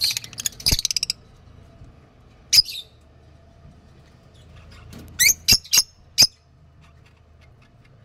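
Peach-faced lovebirds calling in shrill, high squeaks: a quick run of chirps in the first second, a single squeak about two and a half seconds in, then four sharp squeaks in quick succession a little after five seconds.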